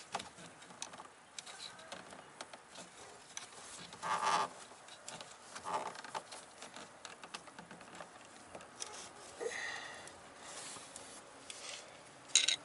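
Quiet clicks, taps and scrapes of hands working a fuel line and its push-button quick-connect fitting at a VW Mk4 fuel filter. There is a short louder knock about four seconds in and a brief high-pitched squeak near ten seconds.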